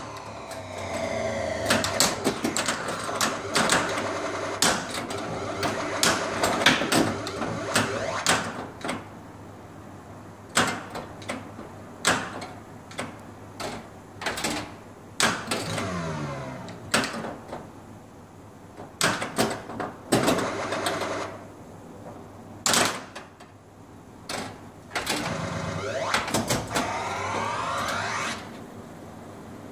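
Gottlieb Volcano solid-state pinball machine in play: electronic sound effects with swooping, sweeping tones, over a string of sharp clacks from flippers, bumpers and the ball striking targets. The machine is working again after a repair.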